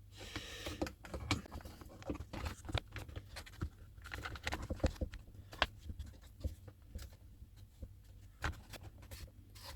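Irregular light clicks and taps of a plastic RC car top plate being handled and fitted over the ESC.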